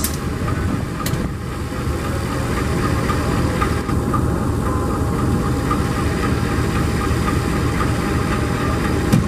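Diesel engine of a KAI CC 203 diesel-electric locomotive idling steadily at a standstill, a deep even rumble with a steady hum above it.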